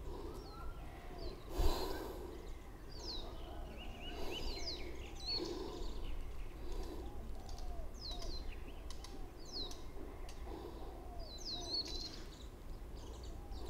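Several birds calling: quick high chirps and lower arched notes repeated over and over, over a steady low outdoor rumble. A short burst of noise comes about two seconds in.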